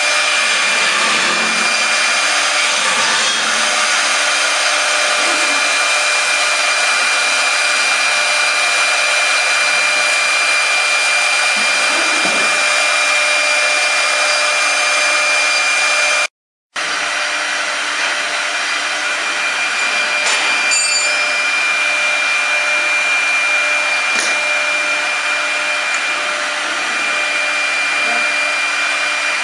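CNC router spindles carving wood: a steady high whine over the hiss of the bits cutting. The sound drops out for a moment about halfway, then carries on the same.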